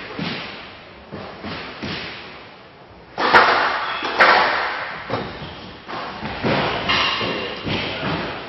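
Squash rally: the ball cracking off rackets and the walls of a glass court in a string of sharp hits roughly a second apart, with the two loudest a second apart midway and ringing in the hall after each.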